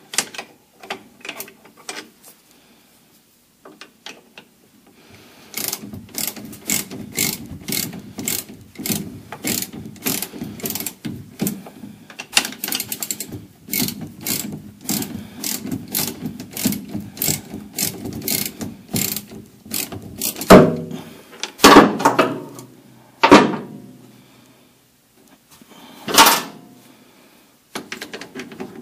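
Ratchet wrench clicking steadily, about two to three clicks a second, as it turns a shock absorber mounting nut. In the second half come four louder sharp knocks.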